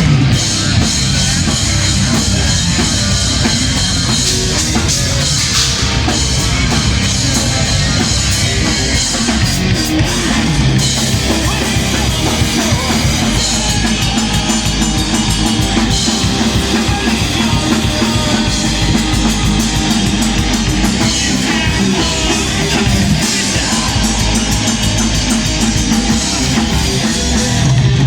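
A rock/metal band playing live: loud distorted guitars over fast, steady drumming.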